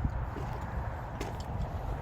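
Footsteps as the person walks, a few irregular scuffs and knocks, over a steady low rumble.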